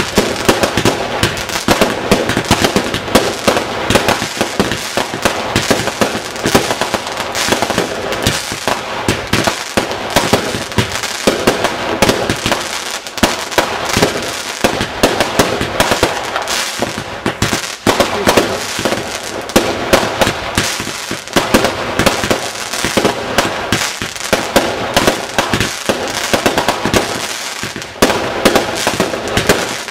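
Fireworks going off: a dense, unbroken run of bangs and crackling, many reports a second.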